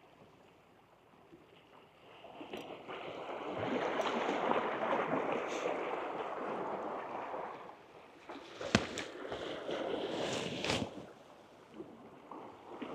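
Small sea waves washing and splashing against the boulders of a rocky shoreline, swelling for several seconds and then fading, with a sharp click about nine seconds in.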